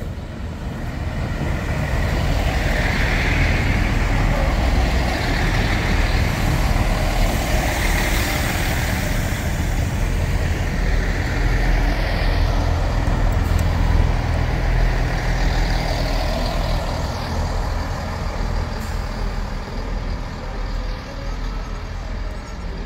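Diesel multiple-unit passenger train running past close by, with a steady low engine rumble and rail noise. It builds over the first couple of seconds, stays loud, and eases off a little near the end.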